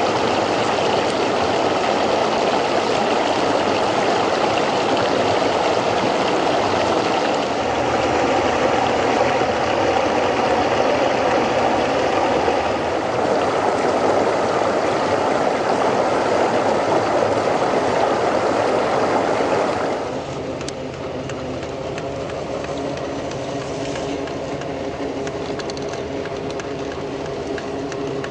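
Creek water rushing over rocks. About twenty seconds in it drops to a quieter level, leaving a steady whine from the RC crawler's electric motor and geared drivetrain (Traxxas TRX4, Hobbywing Quicrun Fusion motor) as it climbs rock.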